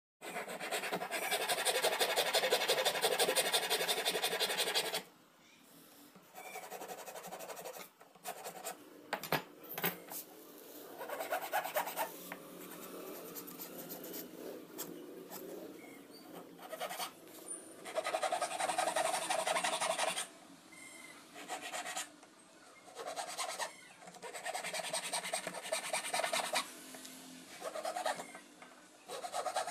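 A flat metal hand file rasping a small round wooden stick, in bursts of quick back-and-forth strokes with short pauses between them. The longest and loudest burst comes at the start.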